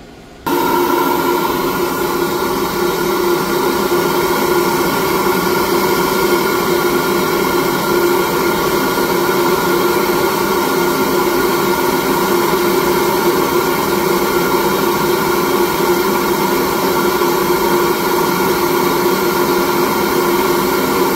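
SuperFlow flow bench switching on about half a second in, then running steadily: a loud rush of air with a few steady tones through it. It is pulling about 350 cfm through a Mopar M1 intake manifold runner at about 27.5 inches of water test pressure.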